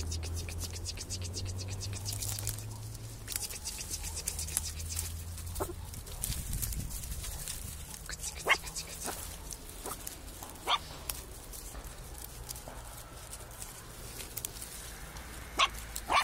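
Young puppies giving short, high yelps, about five of them spread through the second half, over faint crackling of dry twigs and brush.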